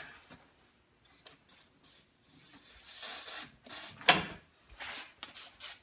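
Aerosol lubricant sprayed in short hissing bursts into a truck door's window regulator mechanism, with a sharp knock about four seconds in.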